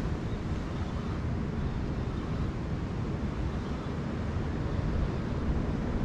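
Wind buffeting the camera microphone on an exposed clifftop: a steady, uneven low noise with no other distinct sound.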